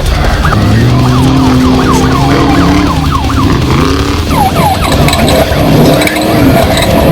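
Off-road race truck's engine revving under throttle, its pitch rising and falling again and again as the revs change.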